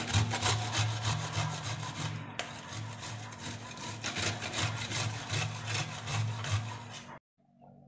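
Candied ash gourd (petha) rubbed against the coarse side of a stainless steel box grater: a quick, steady rhythm of rasping strokes that stops abruptly near the end.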